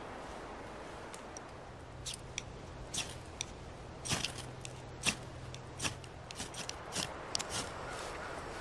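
A knife blade shaving a wooden stick into tinder: a run of short, dry scraping strokes at an uneven pace, starting about two seconds in and stopping shortly before the end.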